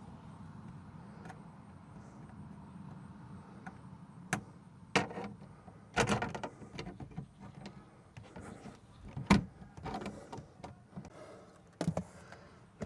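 A series of sharp clicks and knocks of small objects being handled and fitted, over a faint steady low hum.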